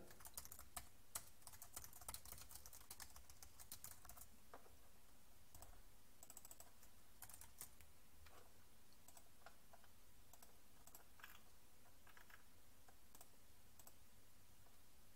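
Faint computer keyboard typing: a quick run of keystrokes in the first few seconds, then scattered single key or mouse clicks.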